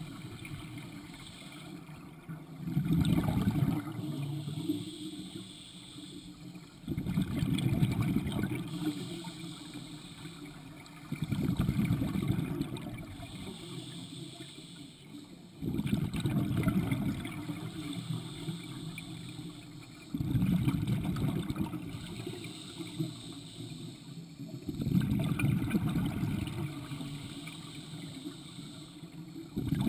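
Scuba diver breathing through a regulator underwater: a loud burst of exhaled bubbles about every four to five seconds, seven in all, each fading into a quieter hiss before the next breath.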